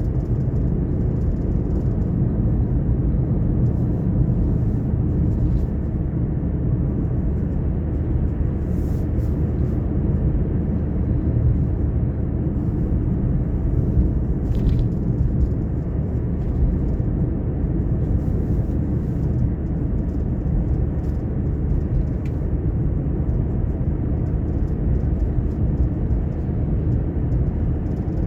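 Steady low rumble of a car being driven: engine and tyre noise, even throughout, with a few faint ticks.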